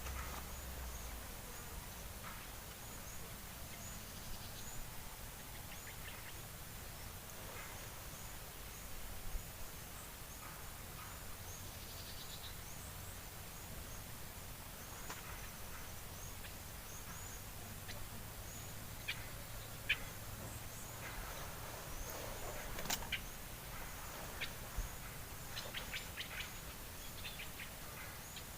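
Birds chirping now and then over quiet outdoor ambience, with a faint high chirp repeating at an even pace throughout and a few brief sharp clicks in the second half.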